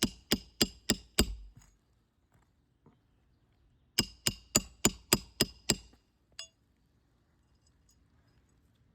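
Hammer striking a roof snake, a metal bar for driving roofing nails under asphalt shingles, to drive a nail back in beneath a lifted 3-tab shingle. Quick strikes with a metallic ring, about four a second: a short run at the start, a longer run of about eight strikes around the middle, then one last tap.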